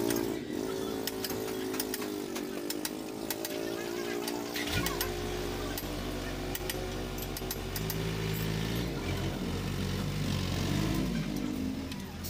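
A small engine or motor running steadily in the background, its pitch dipping briefly twice in the first three seconds, with a lower steady hum joining about five seconds in. Scattered light clicks and crackles of wiring and electrical tape being handled close by.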